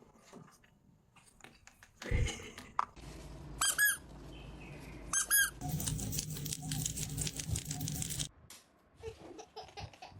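A hamster giving two short, high-pitched squeaks about a second and a half apart, followed by about two seconds of rustling noise.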